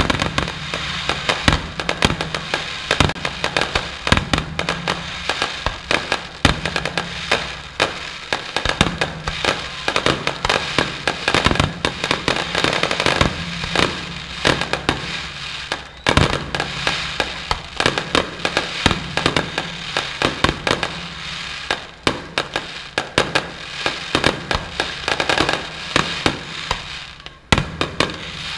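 Fireworks display: a rapid, nearly continuous string of bangs and crackling reports, several a second, with a brief lull near the end. Music plays underneath.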